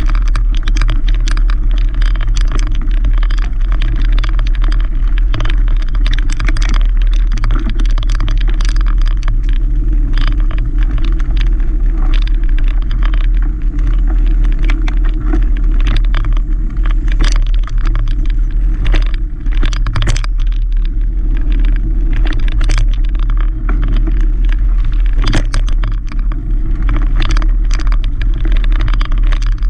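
Mountain bike ridden over gravel and dirt singletrack, heard from a camera riding on the bike. There is a heavy, steady low rumble, with constant rattling clicks from the tyres on loose stones and from the bike's parts.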